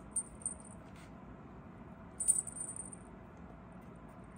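A cat wand toy jingling in short bursts as a kitten bats at its tip: a brief jingle just after the start and a louder one about two seconds in.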